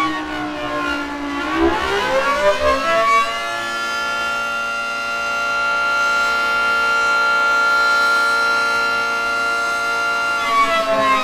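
Civil defense siren sounding as an emergency alarm. It rises in pitch over about two seconds, holds one steady wail for about seven seconds, then begins to fall near the end.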